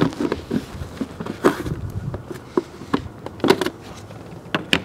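Plastic relay and fuse box cover being unclipped and lifted off: a few sharp plastic clicks and knocks, the loudest at the start, about a second and a half in, about three and a half seconds in and near the end, with lighter ticks of handling between.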